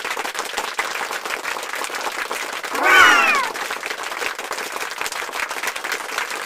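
Steady applause and clapping, with one loud, short, high cry that falls in pitch about three seconds in.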